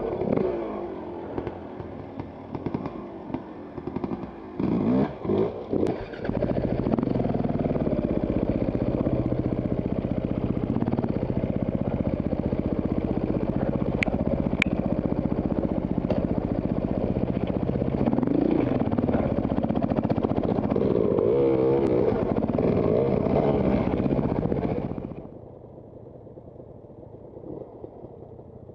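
Enduro dirt bike engine close to the microphone, revving in a few short surges, then running under steady throttle on a rocky climb. About 25 seconds in it drops suddenly to a much quieter idle.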